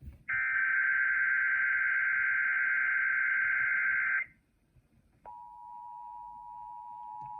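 Emergency Alert System monthly test heard over FM radio: a SAME digital header data burst of about four seconds that cuts off suddenly. After about a second's pause, the steady two-tone EAS attention signal begins and holds.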